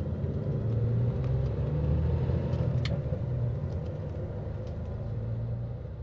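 Car interior noise while driving: a steady low rumble of engine and road, with a few faint clicks.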